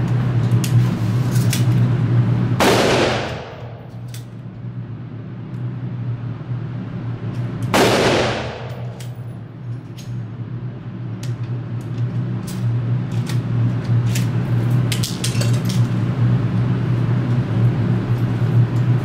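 Two gunshots on an indoor range, about five seconds apart, each ringing off the range walls as it dies away. Fainter sharp clicks come in between and after, over a steady low hum.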